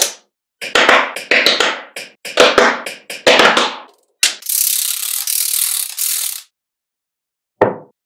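Small magnetic balls clicking and clattering in quick clusters as rows of them snap together, then a plastic card scraping steadily along the balls for about two seconds as a slab is split off. One more click near the end.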